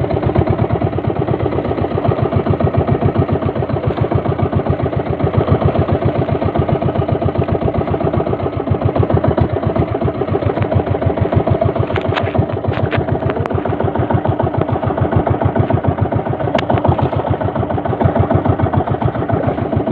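A small boat engine running steadily with a fast, even putter. A few brief clicks come about two-thirds of the way in and again a little later.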